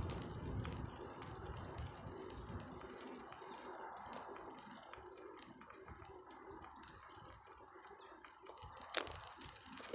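Bicycle coasting on a concrete path, its rear freewheel ticking steadily. A low rumble from the ride dies away after about three seconds, and there is a single sharp click near the end.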